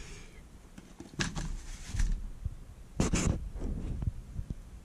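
Handling noise as an airsoft rifle is turned over and set down on foam packing: two brief rubbing scrapes, about a second in and around three seconds in, with a few soft low knocks between them.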